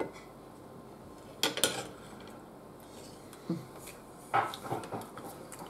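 Cutlery clinking and scraping against a plate during a meal: a couple of sharp clinks about a second and a half in, one more a little later, then a short cluster of clinks near the end.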